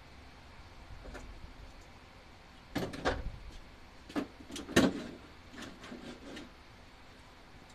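A few separate knocks and clicks, one at a time, the loudest about five seconds in.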